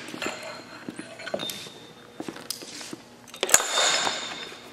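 Small knocks and rattles of volleyball net hardware being handled at the metal upright pole, with a sharp metallic clink about three and a half seconds in that rings briefly.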